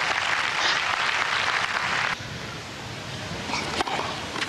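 Stadium crowd applauding, cutting off abruptly about two seconds in. The crowd then stays quieter, with a single sharp knock near the end.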